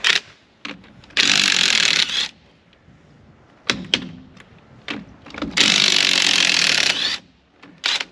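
Cordless impact wrench hammering off a truck wheel's lug nuts in two bursts, about a second and a second and a half long, with short clanks of the socket and nuts between them.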